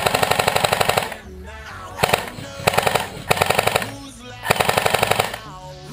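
Full-auto bursts from an H&K MP7A1 airsoft electric gun (AEG): four bursts of rapid, evenly spaced shots, the first and last about a second long.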